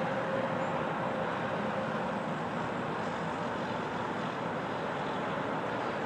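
Steady rush of highway traffic, an even noise with no single event standing out.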